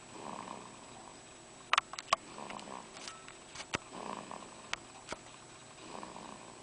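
Three-week-old baby snoring, one noisy snore about every two seconds, four in all. A cluster of sharp clicks about two seconds in, and a few single clicks later, are the loudest sounds.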